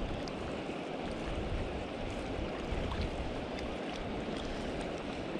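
Wind buffeting the microphone in uneven gusts over choppy river water lapping at the shore ice, with a few faint ticks.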